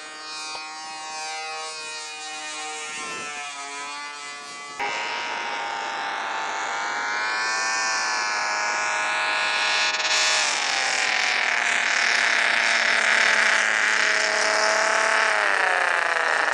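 Multi-cylinder V6 glow-plug model aeroplane engine running at high revs in flight, a steady buzzing whine. Its pitch dips about three seconds in, rises again about ten seconds in and falls near the end, with sudden jumps in level where the footage is cut.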